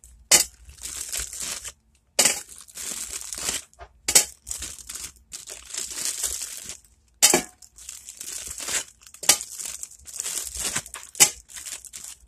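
Plastic packaging of frozen sausage crinkling and rustling as the pieces are handled and taken out, with sharp crackles every couple of seconds.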